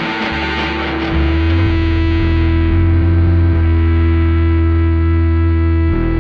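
Rock band playing live: distorted, effects-laden electric guitar holding sustained notes over a loud low bass note that swells in about a second in, while a high cymbal-like wash fades away.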